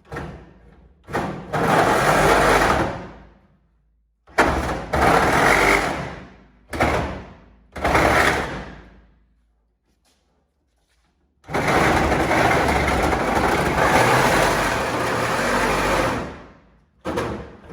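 Power cutting tool slicing through the sheet metal of a pickup truck bed in start-stop bursts: several short cuts, then one long cut of about five seconds in the second half.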